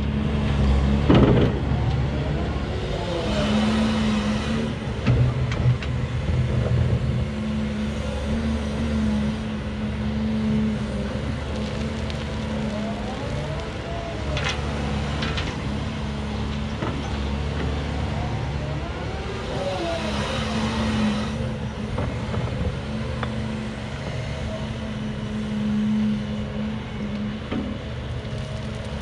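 Cat 336 Next Gen excavator's diesel engine running steadily under load, with its hydraulic whine rising and falling in pitch several times as the boom and bucket swing through dig-and-dump cycles. Soil pours from the bucket into the Cat 730 dump truck's bed with a rush and some clatter of stones, about halfway through.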